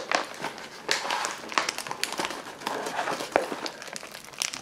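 Thick plastic of a dark brown MRE pouch crinkling and crackling in quick, irregular clicks as fingers pull and twist at the tear notch, struggling to tear it open.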